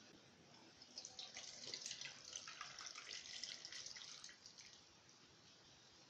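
Hot milk tea poured from the pan through a mesh tea strainer into a steel vessel: a faint trickling splash that starts about a second in and stops near the five-second mark.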